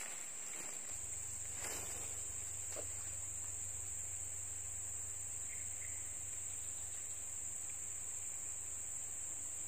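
Steady, high-pitched drone of an insect chorus, unbroken throughout, with a faint low hum coming in about a second in.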